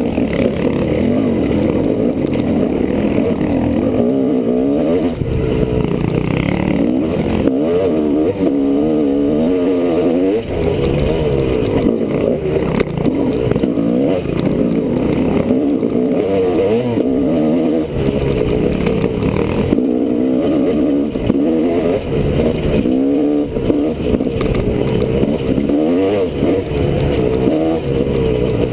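Honda CR250R two-stroke dirt bike engine being ridden hard on a trail, its pitch rising and falling constantly as the throttle is opened and closed.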